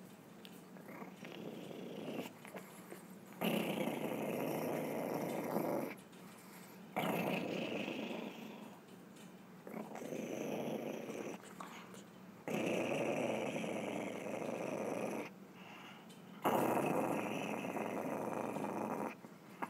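Chihuahua making a rough, breathy noise in about five bouts of two to three seconds each, with pauses of about a second between them.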